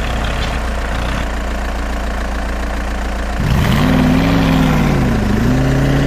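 Engine sound of a heavy vehicle idling steadily, then revving up and falling back twice from about three and a half seconds in.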